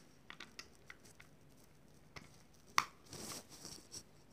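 Small plastic clicks and handling of a compact digital timer's case: a run of light clicks, then one sharp click nearly three seconds in as the battery cover snaps back on, followed by brief rustling and another click.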